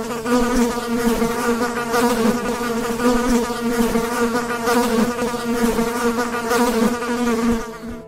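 A flying insect buzzing: a steady wingbeat hum held at one pitch with a slight waver, stopping shortly before the end.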